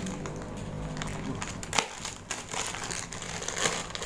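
Plastic courier mailer pouch crinkling and crackling in irregular sharp bursts as it is handled and pulled open.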